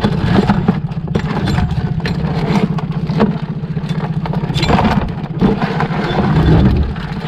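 Boat engine idling steadily, with scattered clicks and knocks as the blue crabs and the crab pot are handled.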